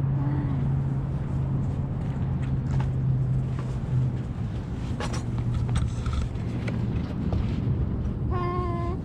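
Steady low hum and rumble of a vehicle running, with a few faint knocks. A short pitched tone sounds briefly near the end.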